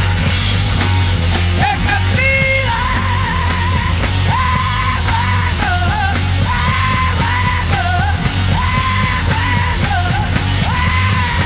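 Live late-1960s hard rock: a male lead singer yelling long, wavering held notes over heavy bass and drums, the vocal coming in about two seconds in.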